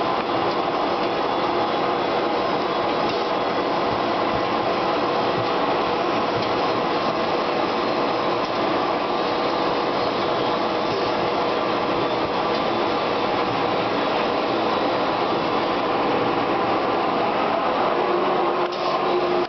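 Pneumatic vacuum conveying system running steadily as its suction hose draws up sawdust: a continuous rush of air and machine noise with a steady whine over it.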